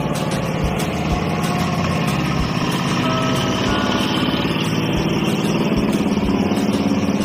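An engine running steadily at an even idle.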